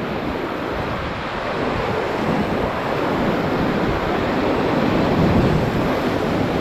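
Whitewater of the Ocoee River rushing and splashing around a raft running a rapid: a steady, loud rush of water that grows a little louder after the first couple of seconds.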